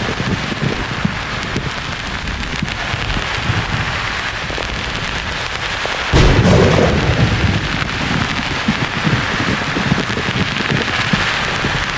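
Thunder over a steady hiss of white noise: low rumbling, then a sudden loud thunderclap about halfway through that rolls on as rumble.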